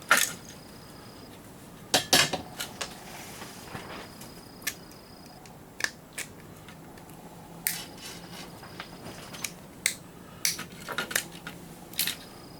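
Irregular sharp clicks and snaps of a plastic surge protector being pulled apart by hand for its metal parts, about fifteen in all, the loudest at the very start and about two seconds in.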